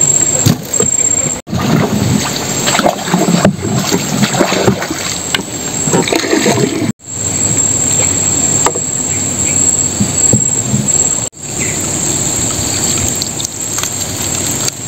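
Net-and-rattan crab traps knocking and rattling against a wooden boat as they are hauled and stacked, with water dripping and splashing off the traps. A steady high whine runs behind, and the sound breaks off sharply three times.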